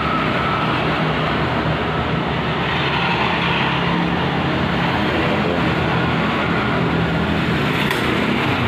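Steady mechanical drone with a low hum underneath, unbroken throughout.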